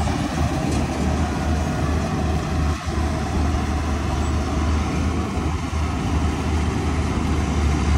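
Heavy farm machine's diesel engine running steadily under load, a continuous low drone.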